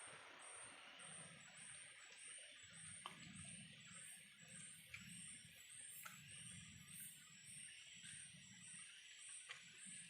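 Faint insect chirping in an even, high-pitched rhythm of about two chirps a second, with a few soft clicks.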